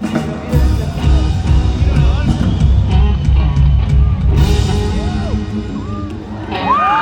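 Live rock band playing loud through an arena sound system: heavy bass and drums under bending guitar and melody lines. A loud held high note comes in near the end.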